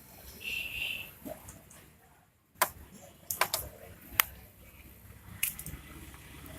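A few sharp clicks and taps spread over several seconds, typical of hands handling parts and fittings, with a short high tone under a second in.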